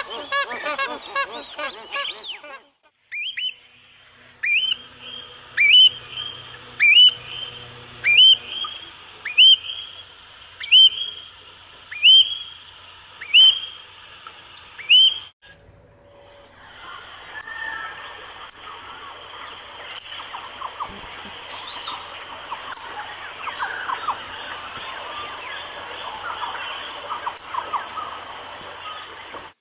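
Honking waterbird calls for the first couple of seconds. Then an Australian pratincole gives a series of about ten sharp rising whistled chirps, roughly one a second. From about halfway on, a busy wetland chorus takes over, with a steady high whine and repeated short chirps.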